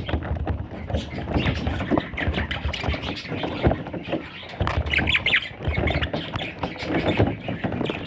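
Budgerigar chicks squawking in short, harsh calls, over rustling and bumping.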